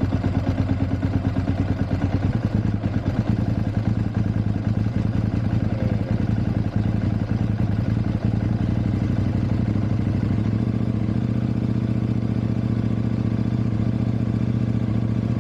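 KTM 790/890 Adventure parallel-twin engine idling just after catching on a hard cold start. The idle is uneven at first and steadies over the last few seconds. The owner suspects the spark plugs are behind the hard starting.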